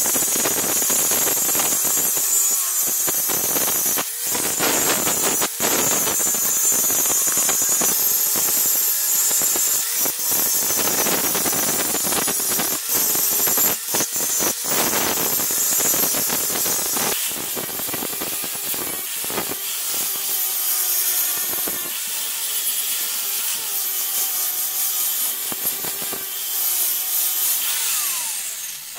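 Handheld angle grinder grinding the steel of a railway-rail anvil, a harsh, awful grinding noise over a steady whine, broken by several brief gaps.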